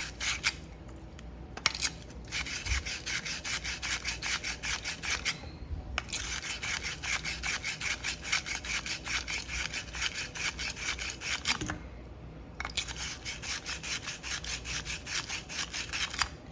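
Pipe ends being sanded by hand with sand cloth: rapid back-and-forth scraping strokes, about six a second, in runs broken by short pauses. The pipe is being cleaned for soldering.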